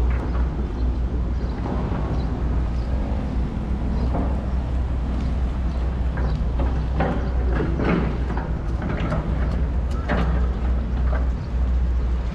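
Backhoes' diesel engines running with a steady low rumble, with occasional short clanks and knocks from the digging.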